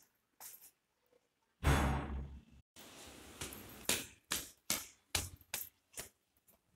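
Footsteps climbing stairs, a regular series of short knocks about two or three a second. About two seconds in there is a loud, low rumble.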